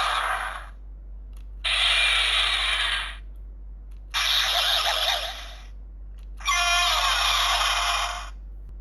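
Electronic sound effects from a toy transformer's small built-in speaker, a thin, tinny sound: the end of one clip, then three more of about a second and a half each with short pauses between.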